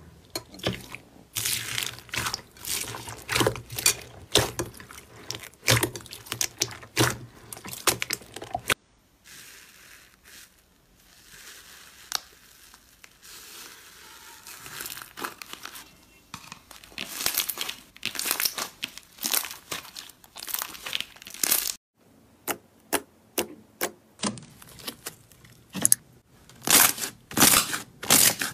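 Slime being squeezed and pressed by hand, giving quick runs of short, sharp sticky pops and clicks, with a quieter stretch near the middle.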